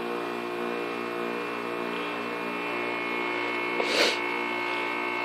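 A 1997 Lennox Elite series heat pump's compressor running steadily through a defrost cycle, a hum made of many steady tones. A short hiss comes just under four seconds in.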